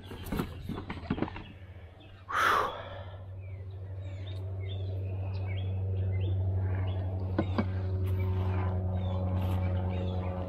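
Birds chirping over a steady low engine hum that grows louder over the first several seconds and then holds. A few light knocks of board game boxes being handled come near the start, and a brief loud noise about two seconds in.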